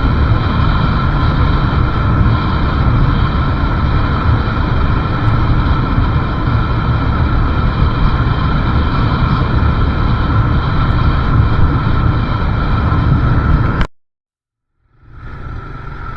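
Riding on a motorbike: a steady rush of wind and road noise with the engine running underneath. About fourteen seconds in, the sound cuts off abruptly for about a second, then comes back quieter.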